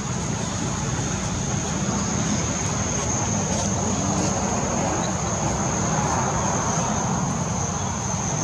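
Steady outdoor background: a constant low rumble with a steady high-pitched drone over it, and no distinct calls or knocks.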